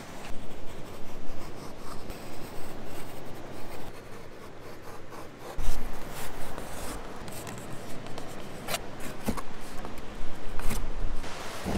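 Irregular rubbing and scraping with scattered light clicks, broken by a dull low thump about halfway through.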